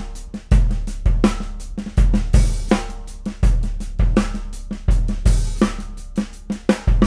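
Acoustic drum kit playing a steady beat: bass drum, snare drum and hi-hat with cymbal wash, picked up by the full set of close and room microphones.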